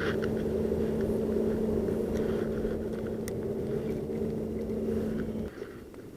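Boat motor running steadily with a low, even hum, cutting off suddenly about five and a half seconds in.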